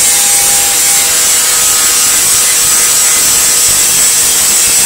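Angle grinder with a wire brush disc scouring paint off a metal paint can: a loud, steady scraping noise with the grinder motor's whine beneath it.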